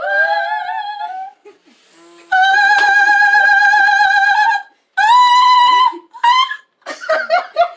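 A woman singing forced high soprano notes: a rising note about a second long, a long held high note of about two seconds, then a briefer, higher note. Giggling follows near the end.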